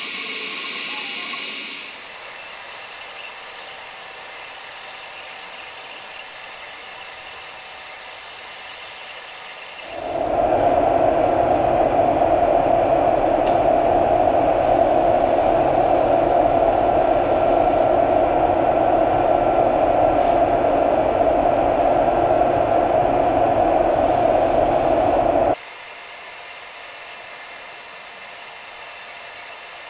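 Steady hiss of spray painting, first from an aerosol spray can and then from a compressed-air paint spray gun. For about fifteen seconds in the middle a louder, steady, lower drone takes over with no hiss, and the spray hiss returns near the end.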